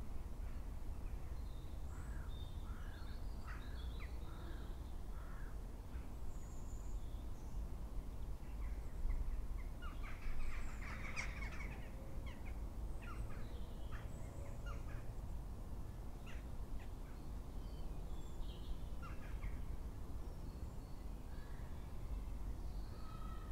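Crows cawing among other bird calls, with a denser burst of calls about ten seconds in, over a steady low outdoor rumble.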